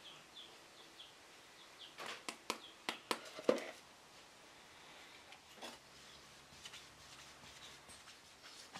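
A quick run of clicks and knocks lasting about two seconds, the loudest near the end of the run, as the wooden box is handled and set against the workbench. Faint, short, high chirps recur throughout.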